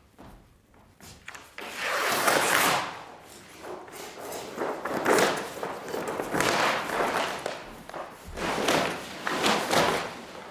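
Large sheets of paper being crumpled and gathered up, in several loud bursts of rustling and crackling with a few dull thuds.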